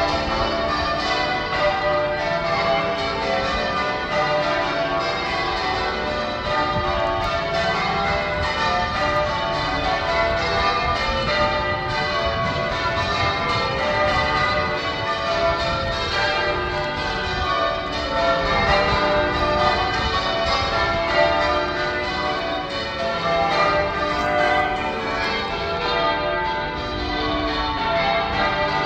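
Cathedral church bells being change rung: a continuous, even run of strikes with the tones of many bells overlapping and ringing on into each other.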